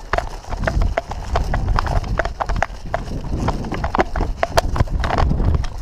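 Running footsteps over rough grass, with gear rattling: irregular thuds and clicks over a low rumble of movement on the body-worn camera.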